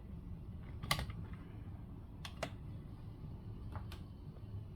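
Scattered sharp plastic clicks and taps, about five, from a multimeter and its test leads being handled and set down on a workbench; the loudest comes about a second in, with a quick pair a little past two seconds.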